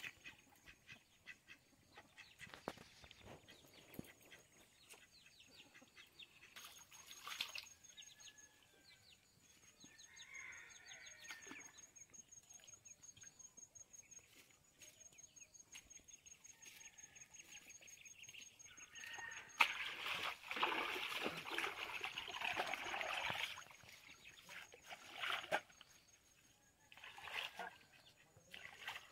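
Ducks calling now and then, and about two-thirds through a few seconds of water splashing and sloshing as fish are washed by hand in a steel bowl at the water's edge, with shorter splashes after it.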